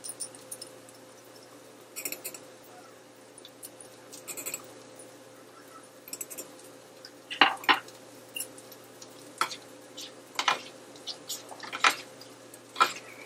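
A cooking utensil stirring spaghetti and sauce in a pot, knocking and scraping against the pot: light taps at first, then sharper clacks about once a second in the second half.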